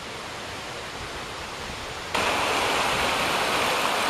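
Water pouring over a river weir: a steady rush that jumps suddenly louder about halfway through, with a quieter steady rush before it.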